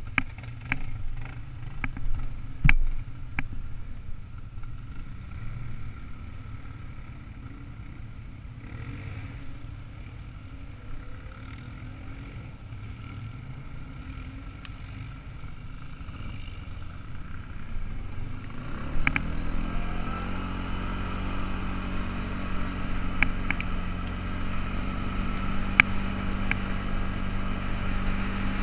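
ATV engine idling low with scattered clicks and rattles, then, about two-thirds of the way through, it picks up into a steady running note as the quad rides off over gravel.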